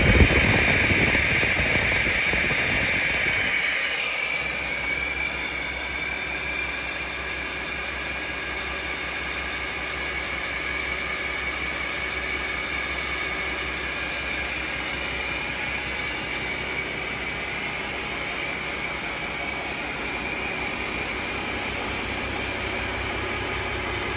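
Cummins ISX15 15-litre diesel engine running steadily, with a high turbocharger whine and intake hiss, loud for about the first four seconds and then quieter.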